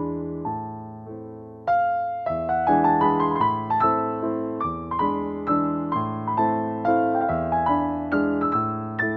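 Background piano music: a gentle melody of struck notes, growing louder a little under two seconds in.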